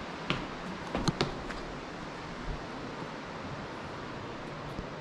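A steady hiss with a few short knocks and rustles in the first second and a half and one more about halfway, from a handheld camera being handled and moved about.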